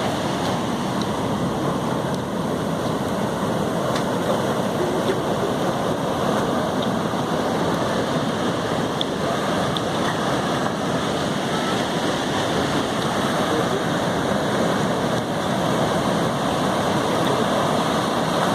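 Ocean surf: a steady rush of waves breaking on the shore.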